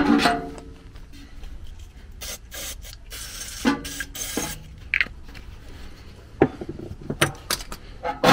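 Metal knocks and scraping from a furnace blower wheel and its sheet-metal housing being worked on with hand tools at the wheel's hub. A sharp knock at the start leaves the housing ringing briefly, then come several short rasping scrapes and scattered knocks.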